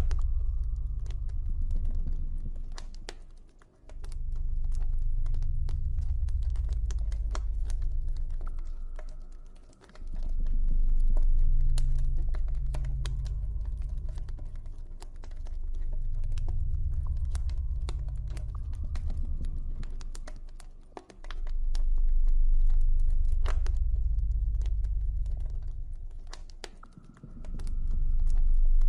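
Campfire crackling with a steady stream of small sharp pops, over a deep low ambient drone that swells and fades every five or six seconds.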